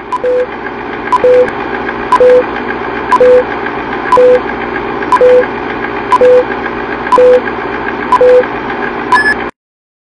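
Vintage film countdown leader sound effect: a steady noisy whirr with a click and a short low beep about once a second, nine times. A single higher beep follows, then the sound cuts off suddenly near the end.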